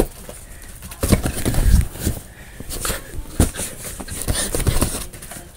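A dog scuffling with a cat toy right at the microphone: irregular knocks, scrapes and thumps, loudest about one to two seconds in.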